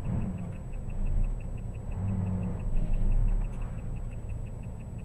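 Low rumble of a car's engine and road noise heard from inside the vehicle, swelling and easing. A faint fast regular ticking, about five or six a second, and a faint steady high whine run through it.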